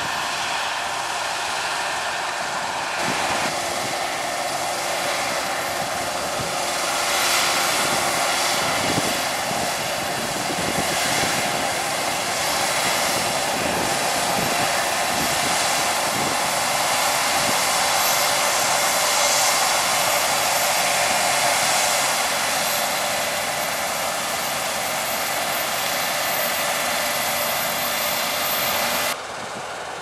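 Claas Lexion 7500 combine harvester at work in barley, unloading on the move beside a John Deere tractor and grain trailer: a loud, steady rush of engine and threshing machinery. The sound changes abruptly about three seconds in and again just before the end.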